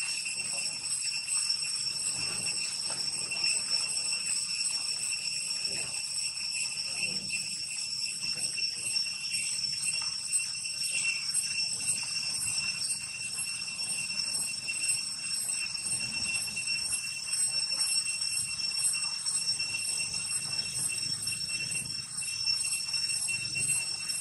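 Steady, high-pitched buzzing chorus of forest insects, several shrill pitches layered at once with a slight rapid pulsing, holding unchanged throughout.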